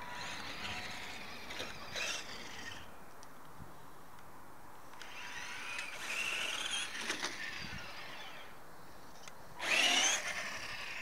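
Tamiya CC01 radio-controlled car's electric motor and gearbox whining, rising and falling in pitch as it speeds up and slows, with its front and rear differentials locked. It is loudest near the end, as it passes close.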